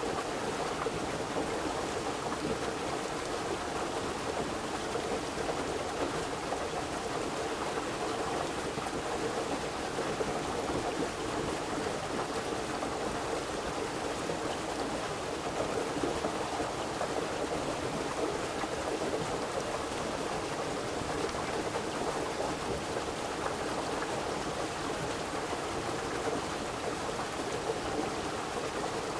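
River water flowing, a steady even rush with no breaks or distinct splashes.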